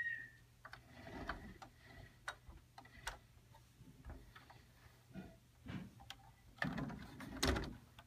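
Fingers handling a diecast model police car: scattered light clicks and knocks on the plastic and metal body, with a louder run of knocking and rubbing near the end.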